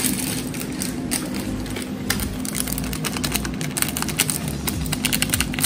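Small plastic sachet crinkling and crackling as it is squeezed and shaken to tip chicken stock powder into a plastic mixing bowl. The crackle comes as a dense, irregular run of small clicks.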